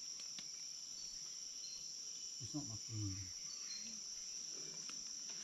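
Steady, high-pitched chorus of forest insects, with a few short chirps over it. A brief faint voice-like sound comes about halfway through.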